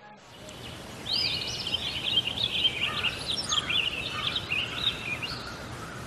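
Bulbul calling: a quick, busy run of chirping, warbling notes that starts about a second in and goes on for about four seconds, over a steady hiss.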